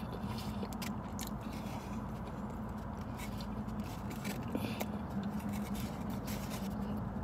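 Quiet eating sounds: chewing, with scattered small clicks and scrapes of a plastic takeout tray and food being handled, over a steady low hum inside a parked car.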